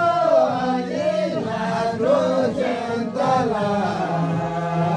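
A group of voices singing a traditional Nyinba dance song together in a chant-like melody that rises and falls over a held low note.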